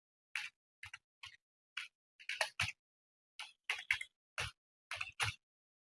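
Computer keyboard keys struck one at a time with a single finger, a quick irregular patter of about three clicking keystrokes a second.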